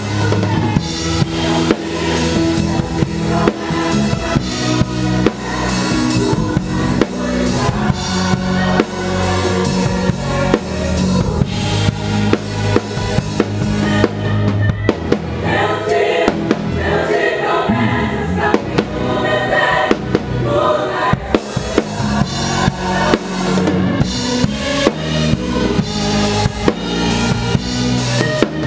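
A live worship band playing: an acoustic drum kit with kick, snare and cymbals keeps a steady beat under bass, guitar and group singing. About halfway through the cymbals drop out for a few seconds and the voices come forward, then the full kit returns.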